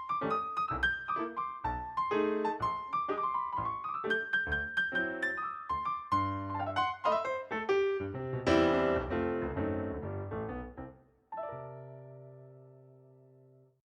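Background piano music: a quick run of notes, a loud chord about eight seconds in, then a final held chord that fades and stops abruptly.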